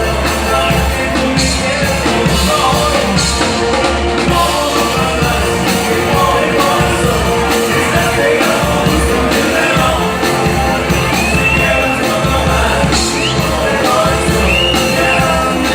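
Live band playing a song with a singer, loud and continuous.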